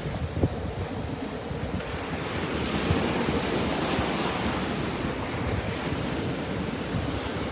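Small waves breaking and washing up a sandy beach, with a wash of surf hiss swelling in the middle. Wind buffets the microphone in low gusts throughout.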